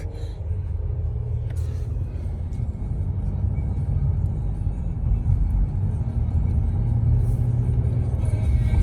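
Road and engine rumble of a car heard from inside the cabin while driving, low and steady.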